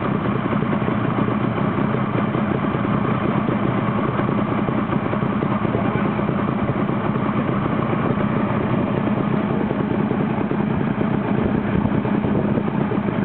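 Suzuki RG500 Gamma's two-stroke square-four engine idling steadily, heard close to its exhaust silencer.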